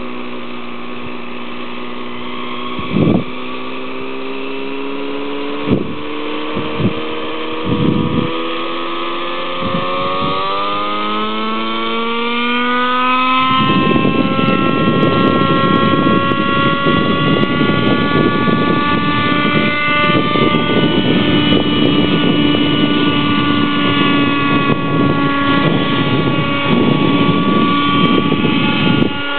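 Two-stroke nitro glow engine of a Raptor 60 RC helicopter running. Several short thumps come in the first eight seconds. About eight seconds in, the engine rises in pitch over a few seconds as it spools up, then holds a higher, steady pitch with a loud rushing noise over it.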